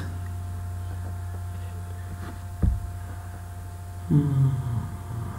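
Steady low electrical hum with a thin steady tone above it. There is a single dull thump about two and a half seconds in, and a brief murmured voice sound about four seconds in.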